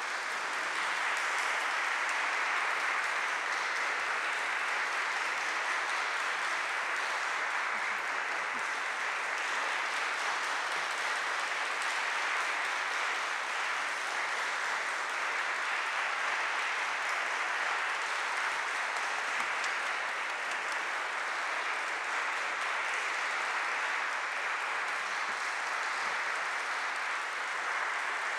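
Concert audience applauding, a dense, steady round of clapping that stays at an even level.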